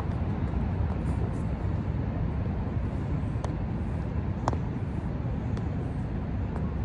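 Steady low outdoor rumble, with a few faint clicks in the middle.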